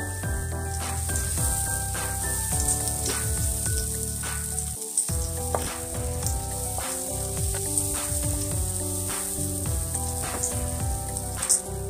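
Onion and garlic sizzling in hot oil in a nonstick wok, stirred with a wooden spatula that taps and scrapes the pan now and then. Soft background music with a changing melody runs underneath.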